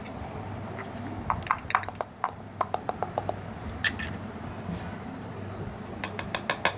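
Scattered light plastic clicks and taps from handling a small food chopper's lid and bowl as the finely chopped onion, green chilli and coriander are uncovered and lifted out, with a quick run of taps near the end, over a low steady hum.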